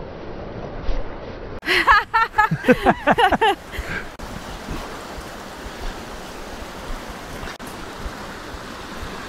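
Steady rushing outdoor noise picked up by a lapel microphone without its wind muff. About two seconds in, a loud burst of high calls that bend up and down in pitch lasts for about a second and a half.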